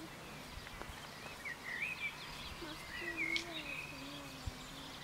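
Small birds chirping in short bursts, twice, over a steady background of outdoor noise.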